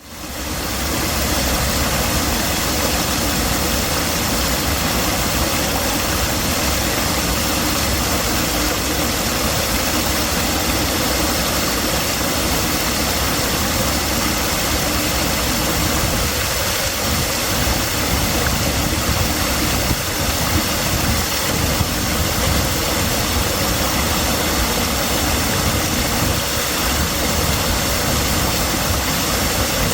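Steady rushing water, a dense even hiss with a low rumble, fading in over the first second and then holding constant.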